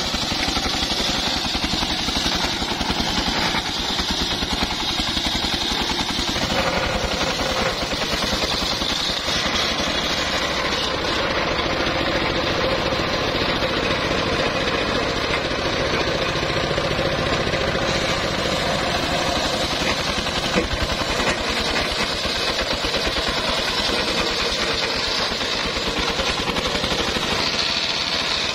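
Homemade circular sawmill running, its engine chugging steadily with a fast even pulse while the big blade rips lengthwise through an old teak log. About six seconds in a steady, higher saw tone joins as the blade cuts.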